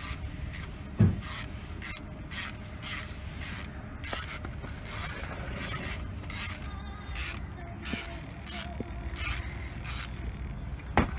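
Ratchet wrench on a long socket extension being swung back and forth to undo the oil pump bolts under a Triumph TR6 engine: short runs of ratchet clicking, about two or three a second, with one knock about a second in.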